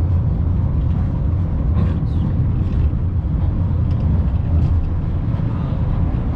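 Steady low rumble of the Budapest Castle Hill Funicular car running along its inclined track, heard from inside the cabin.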